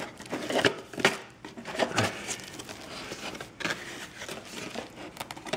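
Packaging being handled: cardboard flaps and bubble wrap rustling and crinkling, with irregular light knocks of cardboard.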